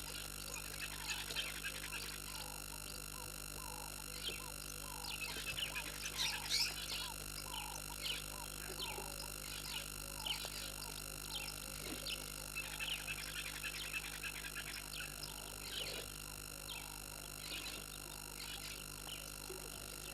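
A small animal calling in a steady series of short notes, about two a second, with scattered higher chirps above.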